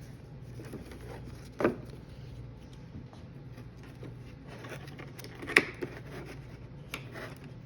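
Handling sounds from unpacking a box: soft rustling with two sharp knocks, one about a second and a half in and a louder one about halfway through, and a few small clicks near the end.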